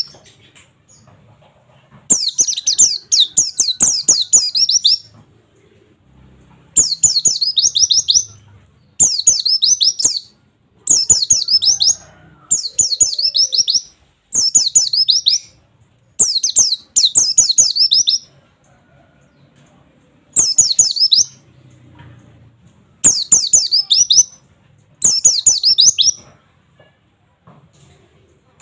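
White-eye (pleci) singing its rapid-fire 'nembak' song: high bursts of quick falling 'wit wit wit' notes, about ten phrases with short pauses between them.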